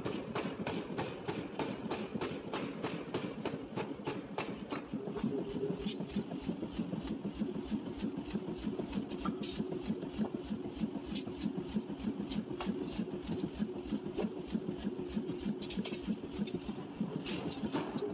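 Forging power hammer striking a red-hot steel ring on the anvil again and again in a rapid, steady series of blows.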